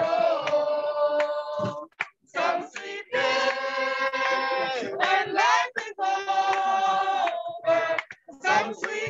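A group of men and women singing a hymn together, holding long notes with short breaks between phrases.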